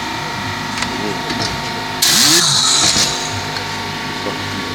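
A motor runs with a steady hum, and about two seconds in a Tornador compressed-air cleaning gun hisses for about a second.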